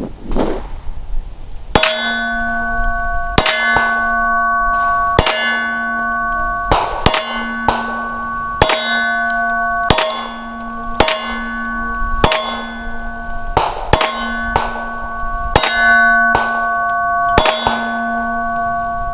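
About fourteen 9mm shots from a Glock 19 pistol at an uneven pace, roughly one a second, each followed by a clanging metallic ring that hangs on until the next shot.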